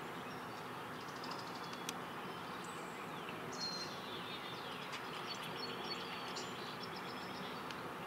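Steady background noise with faint, scattered bird chirps, short high calls and a few downward-sliding ones, heard mostly after the first couple of seconds.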